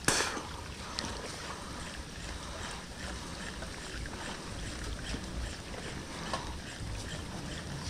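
Wind rumbling on the microphone over a steady outdoor hiss, with one brief sharp whoosh right at the start.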